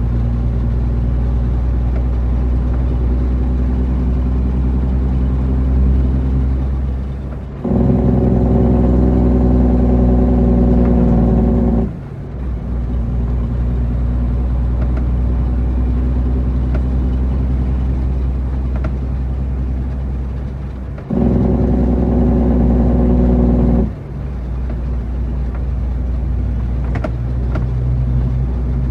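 International 9300 truck's diesel engine running with a steady low drone. Twice, about eight and twenty-one seconds in, it turns abruptly louder for a few seconds, then drops back just as suddenly.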